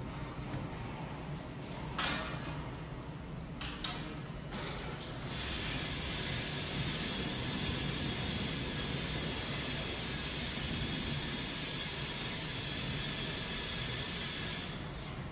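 A sharp metallic clink about two seconds in and a few lighter clicks, then a steady hiss for about ten seconds from the HUBTEX order picker as its raised operator platform comes down. The hiss fades out just before the end.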